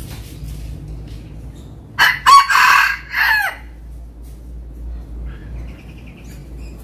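F1 red junglefowl rooster crowing once, about two seconds in: a short, clipped crow of about a second and a half in a few broken parts, falling in pitch at the end.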